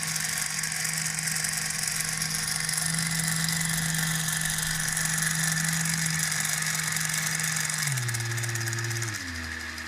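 Lego 12V train motor running the locomotive's wheels on test-bench rollers: a steady electric motor hum with gear and wheel whirr. About eight seconds in, the pitch drops in a few steps as the speed is turned down.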